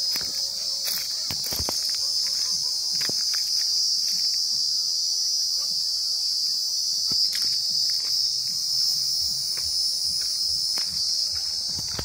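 Steady, high-pitched chorus of insects chirring without a break, with a few faint scattered knocks beneath it.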